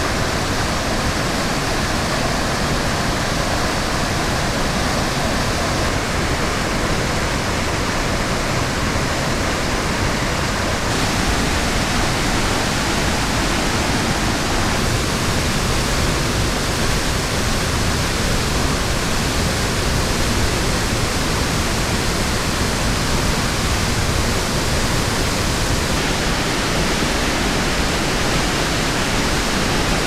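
Nunobiki Falls waterfall: a steady rush of water plunging over rock, filling all pitches evenly.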